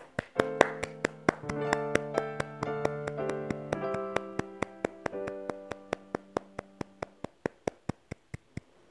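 Background music: sustained keyboard notes over a steady clicking beat of about three clicks a second, the notes dying away near the end.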